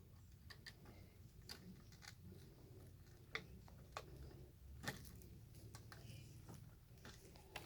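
Faint scattered clicks and ticks of electrical wires and twist-on wire nuts being handled and twisted together, over a low hum.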